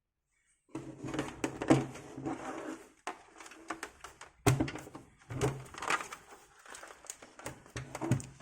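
Amiga 500's plastic case being handled and turned over. After a brief silence come repeated clicks, knocks and scraping as the case is worked loose.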